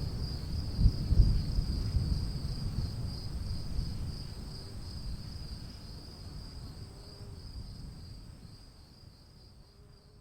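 A steady, pulsing high-pitched insect trill, cricket-like, over a low rumbling noise that is loudest in the first couple of seconds. Everything fades down gradually toward the end.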